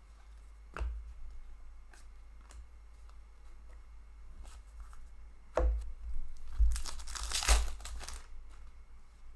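Foil wrapper of an Upper Deck SP Authentic hockey card pack torn open and crinkling by hand, loudest about six to eight seconds in. It follows a few light clicks as cards are set down.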